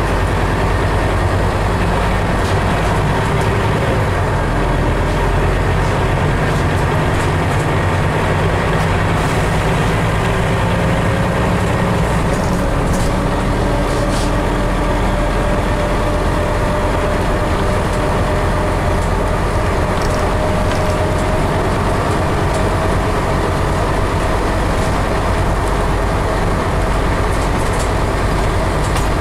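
Scania CN270UB city bus driving, heard from inside the passenger cabin: steady engine hum and road noise. A whine starts about a third of the way in and rises slowly in pitch.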